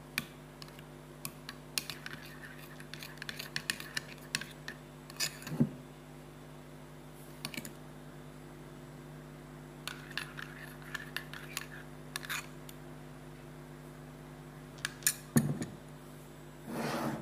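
Metal spoon stirring mayonnaise and sweetened condensed milk in a ceramic bowl, clicking and scraping against the bowl in three spells of quick taps, over a steady low hum.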